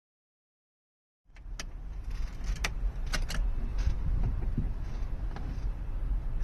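About a second of dead silence, then a low rumble with a run of sharp clicks and knocks, the sound of something being handled.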